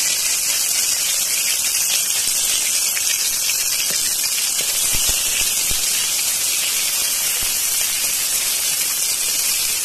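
Curry leaves and dried red chillies sizzling and spluttering in hot oil in a kadai, a steady hiss: the tempering (thalippu) being fried.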